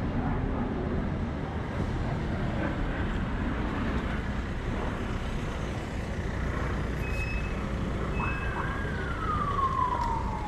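Steady street traffic noise, with a distant siren wailing from about eight seconds in: its pitch jumps up, holds briefly, then slides slowly down.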